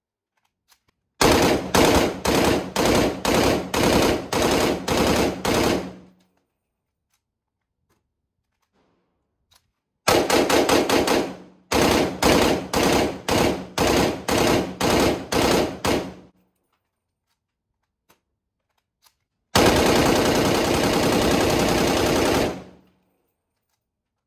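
POF CW39 rifle firing: two strings of rapid shots at about two to three a second, then near the end one unbroken full-automatic burst of about three seconds.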